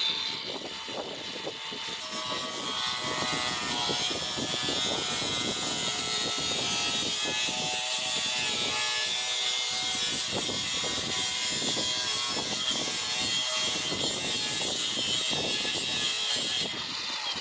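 Handheld electric power tool running steadily for about seventeen seconds, its motor whine wavering slightly as it works. It starts and cuts off abruptly.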